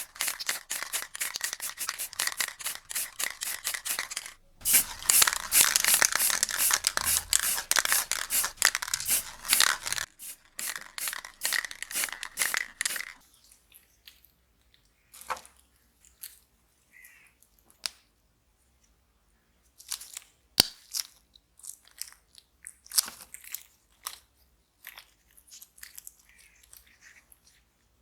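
Rapid scratchy rubbing or scraping strokes of hand work on a small scale-model car, with a short break about four seconds in. They stop about thirteen seconds in, giving way to scattered light clicks and taps.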